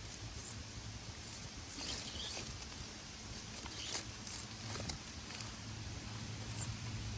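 Axial AX24 RC crawler working across dirt and rocks, with irregular small clicks, crunches and scrabbling from its tyres and chassis over a low steady hum.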